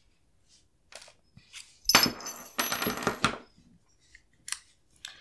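Metal clicks and clinks from a Young Manufacturing chrome AR-15 bolt carrier group being taken apart by hand as the firing pin comes out. There are two brief metallic rattles with a light ringing tone about two and three seconds in, between a few lighter ticks.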